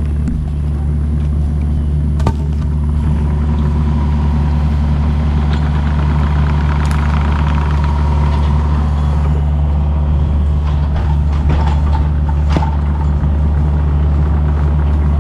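A vehicle or machine engine running steadily at an even speed, with a few sharp knocks, one a couple of seconds in and another near the end.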